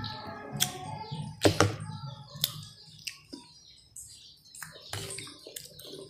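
Close eating sounds of fresh pineapple: wet chewing and lip smacks, with fingers handling pieces of fruit in a bowl. Irregular sharp clicks, quieter for a second or so midway.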